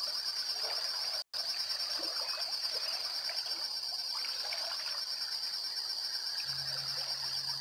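Insects shrilling in a steady, high-pitched, rapidly pulsing chorus, with scattered faint bird chirps. The sound cuts out completely for an instant about a second in, and a faint low hum comes in near the end.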